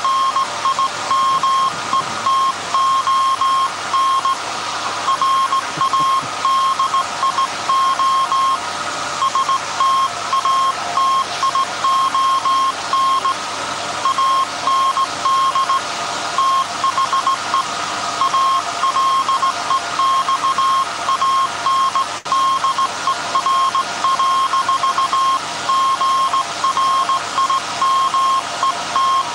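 Morse code message sent by hand key on the SAQ Alexanderson alternator transmitter, heard as a steady high tone keyed on and off in dots and dashes. Under it is the steady hum of the 1924 Alexanderson alternator running.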